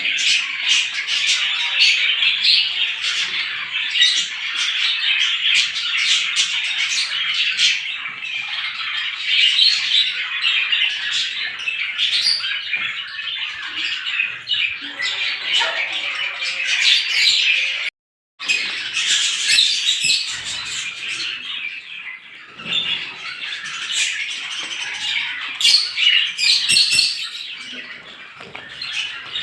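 A flock of sparrows chirping and squawking together in a dense, continuous chatter. The sound breaks off completely for a split second about eighteen seconds in.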